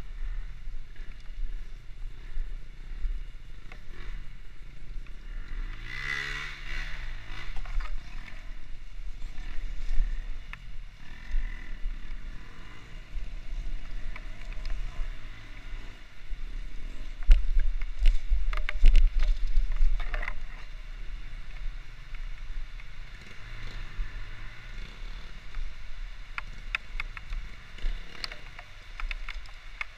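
A vehicle engine running while driving, its pitch rising and falling with the throttle, over a steady low rumble of wind and road noise. Scattered knocks and rattles come through, and there is a louder rumbling stretch about two thirds of the way in.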